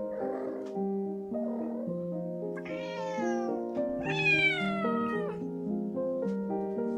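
A cat meowing twice over background music. Both are long calls that fall in pitch, and the second is longer and louder.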